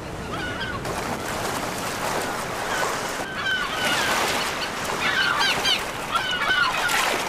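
A flock of gulls calling: many short, overlapping cries that rise and fall in pitch, thickest in the second half, over a steady noisy wash of splashing water and wingbeats.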